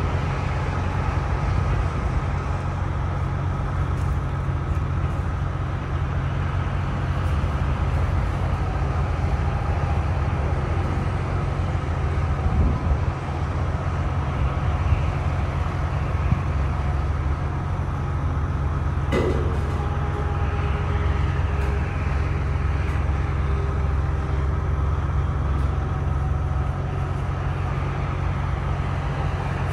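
Vibratory pile hammer rig (ThyssenKrupp MS-10) running: a steady, loud low mechanical drone while it drives a steel pipe pile. A single sharp click or knock comes about two-thirds of the way through.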